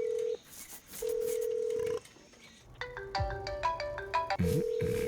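Telephone ringback tone, a steady beep about a second long that sounds twice, then a marimba-style mobile phone ringtone melody starts about three seconds in, with the ringback beep sounding again over it near the end.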